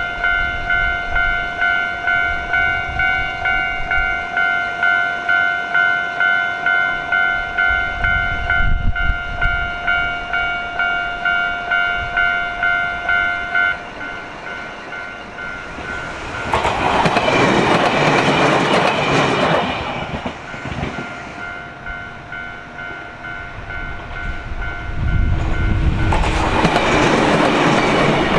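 Japanese level-crossing electronic warning bell ringing at about two strikes a second. It stops about halfway through, and a fainter crossing bell carries on. Trains rush past twice in the second half, with wheel noise over the rails.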